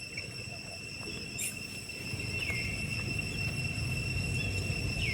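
Steady high-pitched insect drone, with a low rumble underneath and two short falling squeaks, one about halfway and one near the end.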